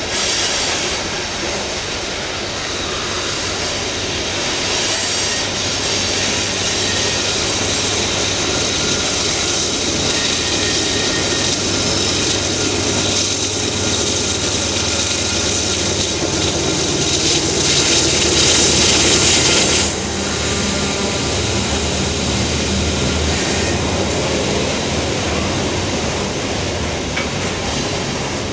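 Heavy loaded coal train crawling upgrade on curved track: steel wheels rolling and squealing on the rails, with the low engine sound of a diesel locomotive pushing in the train, strongest as it passes about halfway through. A loud high-pitched squeal builds near two-thirds through and cuts off suddenly.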